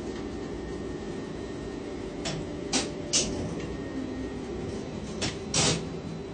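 Steady low hum of crane machinery heard from a ship-to-shore container crane's operator cabin, broken by five short, sharp clattering noises between about two and six seconds in.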